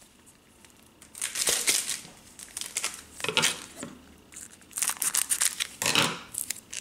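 Crinkly wrapper of a hockey card pack rustling as it is handled and its sealed top edge is cut off with scissors. It starts about a second in and comes in three bursts.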